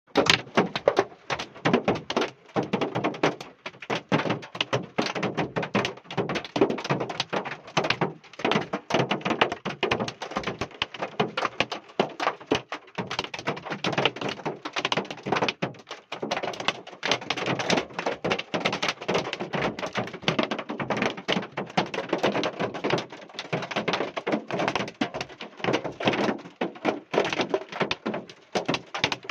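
Hail pelting down: a dense, irregular clatter of hard hits with no let-up.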